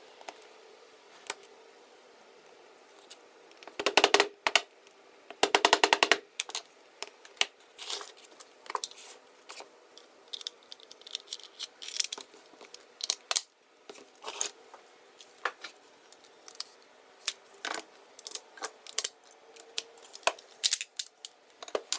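Plastic and metal parts of a KWA KRISS Vector gas blowback airsoft SMG clicking and knocking as the trigger housing is handled and fitted into the lower receiver, with two quick runs of rapid clicks about four and six seconds in.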